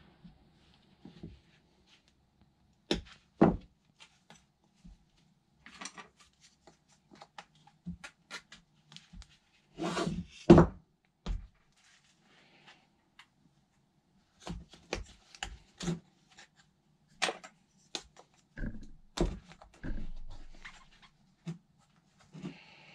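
Irregular knocks and clicks of plastic tyre levers against the wheel rim, with short scrapes and scuffs of rubber, as the tyre of an 8.5-inch e-scooter wheel is levered off by hand. The loudest knock comes about ten seconds in.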